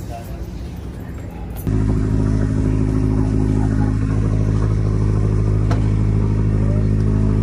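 Steady low engine hum of a moored passenger ferry, cutting in abruptly about two seconds in after a quieter rumble.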